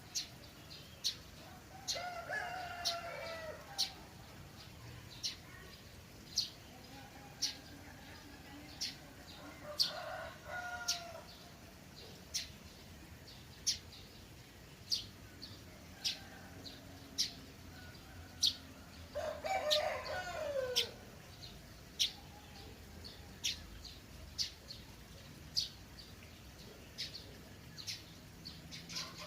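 Rooster crowing three times, each crow about two seconds long, the last one loudest. Behind it a small bird chirps steadily, one sharp high note about every second.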